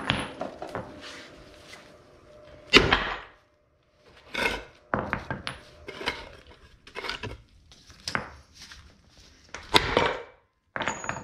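Hand tools knocking and clanking against metal, a string of separate sharp strikes at uneven intervals, as a worn wheel bearing is driven out of its hub. The loudest strike comes about three seconds in, with another strong one near the end.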